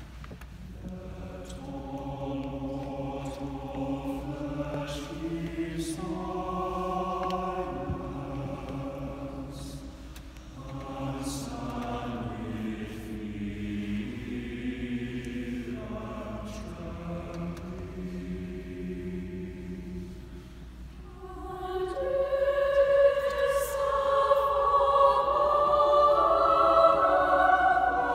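Mixed choir singing a slow choral anthem in a church, soft at first and swelling louder about 22 seconds in as higher voices join.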